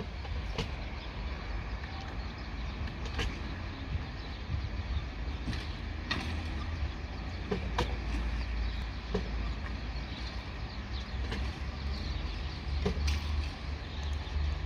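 Low steady rumble, like wind on the microphone, with scattered short clicks and creaks over it.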